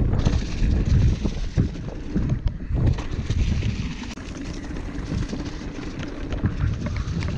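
Wind buffeting the microphone over the tyres of a Ragley Blue Pig mountain bike rolling fast along a dirt trail, with frequent small rattles and knocks from the bike.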